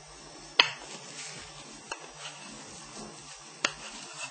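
Knitting needles clicking as stitches are knitted: three sharp clicks, the first, about half a second in, the loudest, with a few fainter ticks of handling between them.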